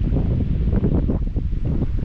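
Wind buffeting the microphone: a loud, uneven low rumble in gusts.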